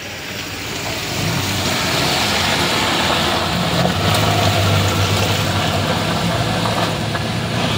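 Toyota Hilux pickup's engine pulling under load as it climbs a steep, rutted dirt slope, growing louder over the first couple of seconds, then holding steady.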